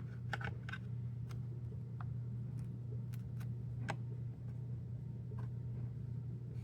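Scattered light clicks and taps of plastic vacuum-cleaner parts being handled and worked loose, irregular and a second or so apart, over a steady low hum.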